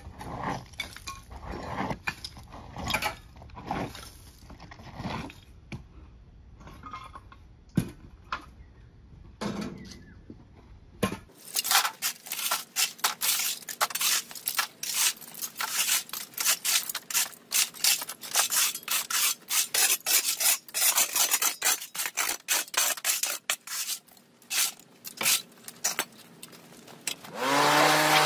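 Scattered rustles and knocks, then from about eleven seconds in a shovel and rake scraping dirt and leaf debris across a hard yard floor in quick, repeated strokes. Near the end a petrol leaf blower starts up, its pitch rising and then holding steady and loud.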